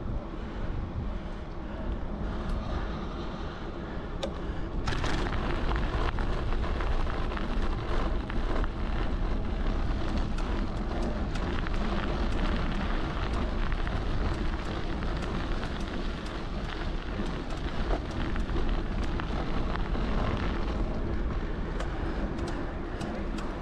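Wind buffeting the microphone with road and traffic noise during a bicycle ride, with small rattles throughout. It gets louder about five seconds in.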